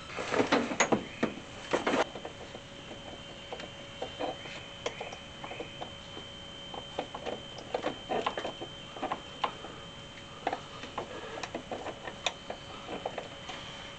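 Irregular small clicks, taps and scrapes of a rubber heater hose being handled and fitted at the heater core pipes, with a few louder knocks in the first two seconds. A faint steady high whine runs underneath.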